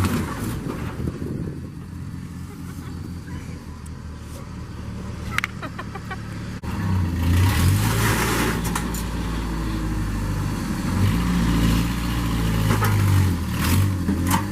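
A motor vehicle's engine running, with a low droning hum that grows louder and fuller about seven seconds in.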